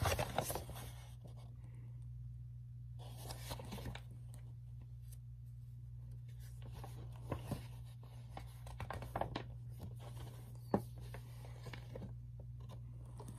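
Quiet handling of a picture book: faint paper rustles, scrapes and small taps as its pages are turned, with a sharper tap near the end, over a steady low hum.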